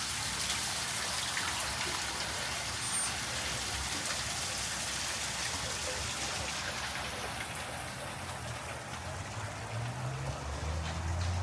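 Steady rain falling on the street as an even hiss, with a low rumble building near the end.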